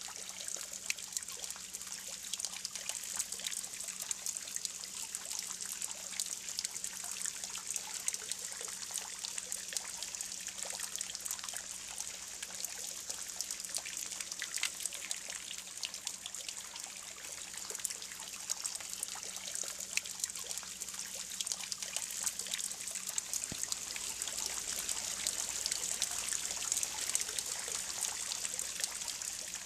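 Spring water pouring in a thin stream from a spout into a stone pool, trickling and splashing steadily.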